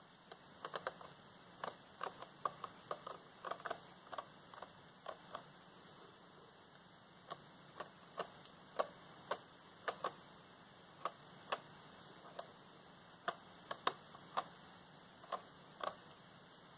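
Fingernails tapping on the cover of a spiral-bound notebook: light, sharp, irregular clicks. They come in quick clusters at first, stop briefly about six seconds in, then carry on more sparsely.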